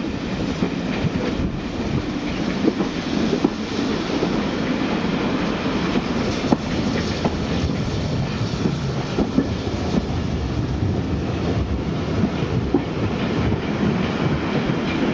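Railway carriage running along the track, heard from aboard: a steady rumble of wheels on rail with frequent clicks and knocks over joints and pointwork.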